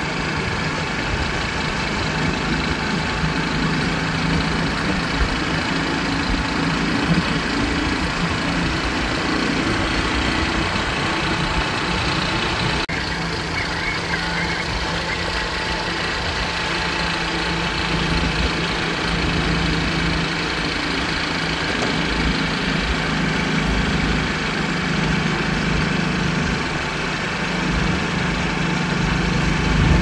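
Motorcycle engine running steadily while riding, its note shifting a little in pitch about halfway through.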